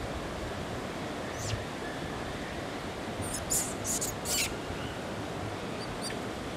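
Steady outdoor rushing noise, with a few short, high chirps about a second and a half in, a quick cluster of them around the middle, and one more near the end.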